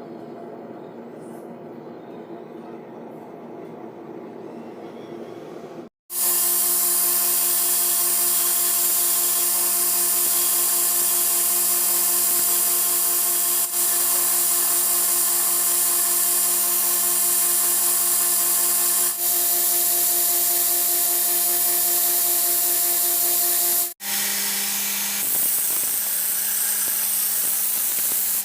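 Electric grinder running on steel, a steady motor whine under a loud hiss of abrasive on metal. It starts suddenly about six seconds in, after a quieter low rumble, and breaks off for a moment near the end before carrying on.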